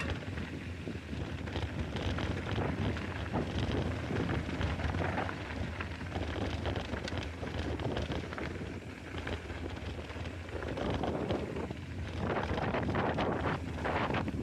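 Wind rushing over an action camera's microphone on a moving mountain bike, with the tyres rolling over a dry dirt trail and short knocks and rattles from the bike over bumps.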